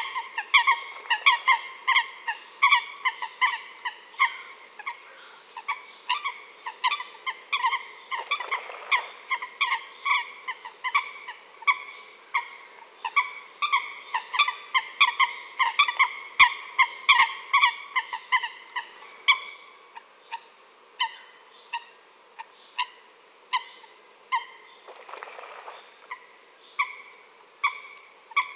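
Coots calling: a long run of short, repeated calls, several a second at first and thinning to about one or two a second in the last third. Two brief rushes of noise come about a third of the way in and near the end.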